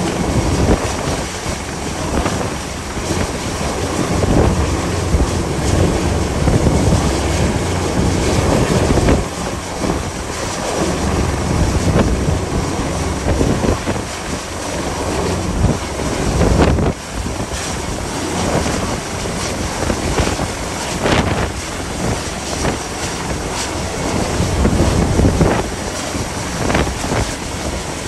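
Gale-force wind buffeting the microphone in uneven gusts, over the rush of a rough sea.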